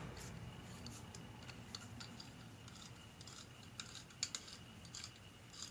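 Faint, irregular small metallic clicks from a Record Power SC2 mini lathe chuck as its chuck key is turned to wind the scroll and move the jaws. A few sharper clicks come about four seconds in.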